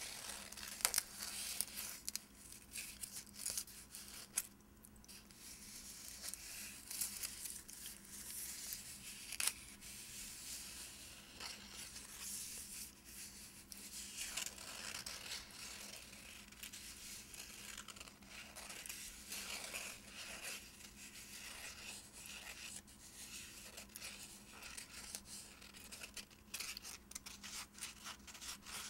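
Fingernails scratching and tracing over the paper wrapping of a gift-wrapped bar of soap: a continuous, crisp scratching made of many short strokes.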